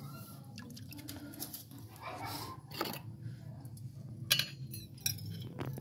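Water sloshing and dripping in a basin as hands wash a muddy gold-dust slurry, with a few sharp clicks and taps from a steel bowl handled against the basin.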